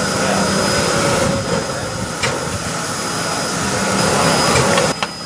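Nickel Plate Road 765, a Lima-built 2-8-4 Berkshire steam locomotive, standing in steam: a steady hiss and mechanical hum with a thin high whine, with faint voices behind. The sound dips briefly near the end.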